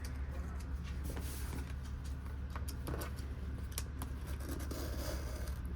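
Cardboard box being worked open by hand, with faint scattered clicks and rustles of the box and its tape, over a steady low hum.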